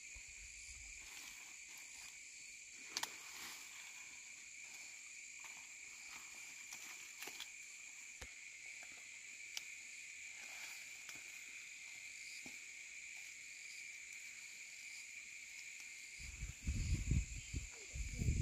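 A steady chorus of insects, an even high trill at two pitches that runs without a break, with a few faint clicks. Near the end, loud low rumbling thumps come in.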